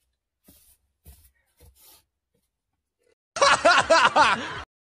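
A short burst of laughter about three and a half seconds in, lasting about a second, after a few faint soft sounds.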